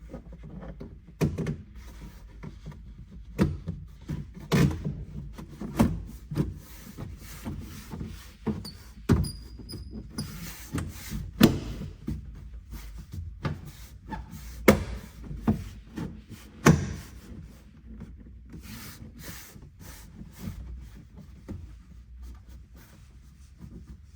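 Irregular knocks, clunks and rubbing as hands work on a truck's interior pillar trim and a bottle-mounting bracket. The loudest knocks fall around the middle.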